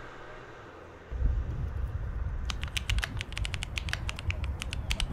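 Rapid, irregular sharp clicks inside a car, starting about halfway through, over a low rumble that comes in about a second in.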